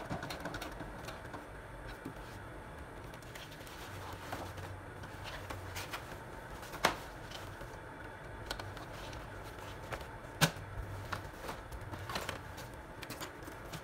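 Handling at a Brother sewing machine: scattered light clicks and the rustle of a leather vest being shifted and pulled out from under the needle, with two sharp clicks, one about halfway through and one about three-quarters through.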